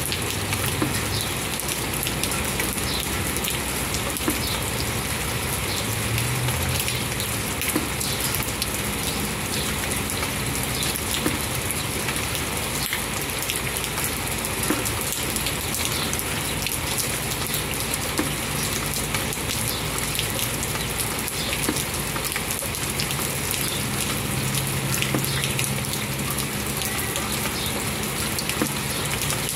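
Steady rain falling, with many small ticks of single drops striking close by.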